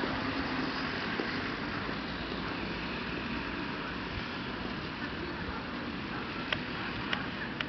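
Street ambience: a steady, even noise of distant road traffic. Three short sharp clicks come in quick succession near the end.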